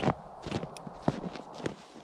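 Footsteps on packed snow: a few irregular, sharp steps.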